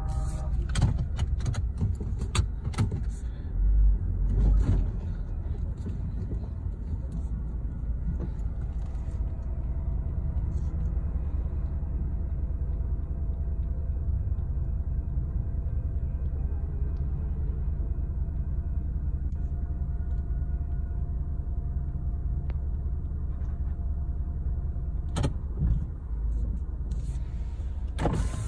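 Steady low rumble of a car's idling engine heard inside the cabin, with a few sharp clicks in the first few seconds and a louder low thump about four seconds in.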